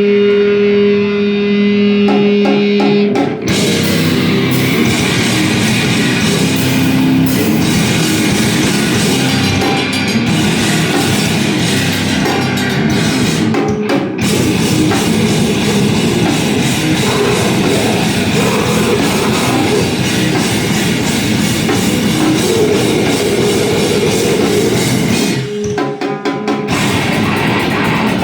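Live heavy rock band playing loud distorted electric guitar and drum kit. Held guitar notes open, the full band comes in about three seconds in, and the playing drops out briefly twice, near the middle and near the end.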